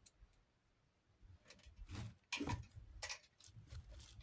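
Light, irregular clicks and taps of small hardware being handled, as in picking through screws and parts for another screw. The clicking starts about a second in.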